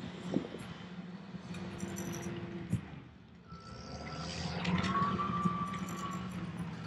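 Crawler bulldozer's diesel engine running steadily, swelling about halfway through with a high whine that fades out near the end. A couple of sharp knocks land on top, about half a second and nearly three seconds in.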